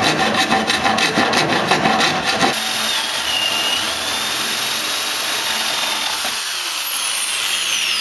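A screwdriver tip grinding into laminated particle board in fast, rhythmic scraping strokes. About two and a half seconds in, a cordless power drill starts and runs steadily with a thin whine as it bores a hole through the board.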